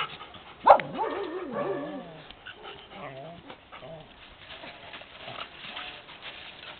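Excited dog vocalising: a sharp yelp a little under a second in, running straight into a wavering, high whine, followed by fainter whimpers.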